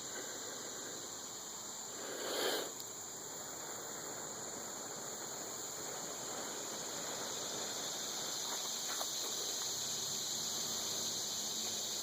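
Steady, high-pitched chorus of crickets and other insects, with a short whooshing noise about two seconds in.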